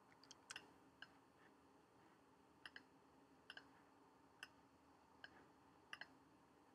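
Faint, scattered computer mouse clicks over near silence, a dozen or so, some in quick pairs.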